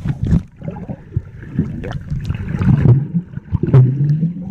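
Muffled underwater sound picked up by a submerged camera: low rumbling water movement from a swimmer close by, with scattered knocks and bumps against the camera.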